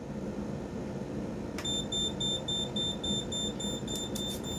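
Rapid, high-pitched electronic beeping from an alarm system, about four beeps a second. It starts with a click about one and a half seconds in, and a couple of clicks come near the end.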